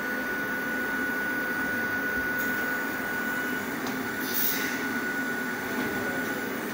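Hakone Tozan Railway 100-series electric train pulling away from a standstill, its running noise carrying a steady high whine. A short hiss comes about four seconds in.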